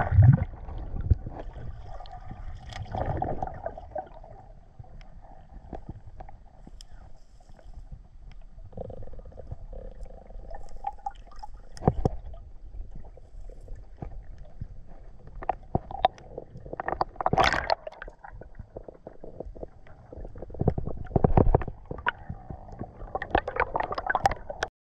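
Underwater sound picked up through a diving camera's housing: muffled water noise with gurgling and bubbling from the diver's movements, broken by several sharp knocks against the housing and spear gear.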